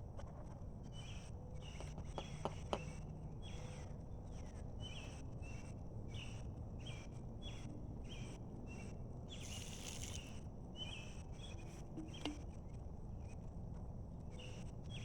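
Outdoor insect chorus: a steady high buzz, with short chirps repeating about once a second over a low background hiss. A few light clicks come a couple of seconds in, and a brief louder hiss comes about ten seconds in.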